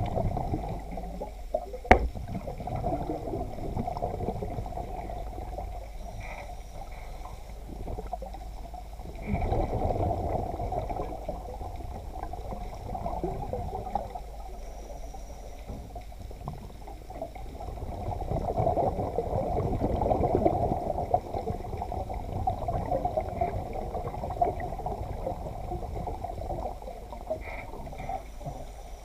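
Muffled underwater water noise heard through a camera's waterproof housing, swelling louder twice, with a single sharp knock about two seconds in.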